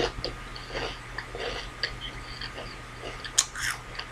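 A person chewing a crunchy potato chip: irregular crisp crunches, with a sharper crunch about three and a half seconds in, over a faint low hum.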